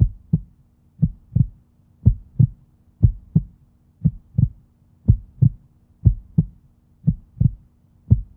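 Heartbeat sound effect: paired lub-dub thumps at a steady pace of about one beat a second, over a faint low hum.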